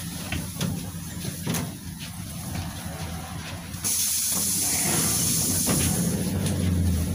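Cabin of a PAZ 32054 bus with its ZMZ-5234 V8 petrol engine running steadily. About four seconds in, a loud hiss of air starts abruptly and lasts about three seconds.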